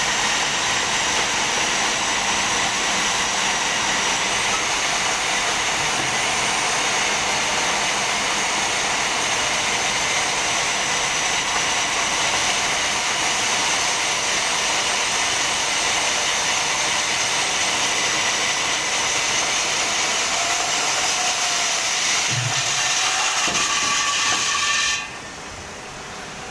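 Portable core drilling machine running steadily with a high whine as it bores through a slab. Near the end it stops abruptly, leaving a quieter steady hum.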